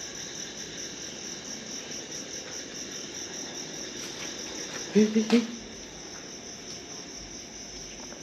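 Crickets chirping in a steady, rapidly pulsing chorus. About five seconds in, a short loud voice-like sound in two quick parts rises above it.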